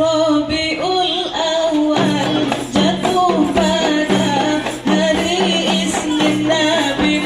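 Rebana frame-drum ensemble playing a sholawat tune with a steady beat of drum and jingle strokes, under a held, wavering melody line and a changing bass line.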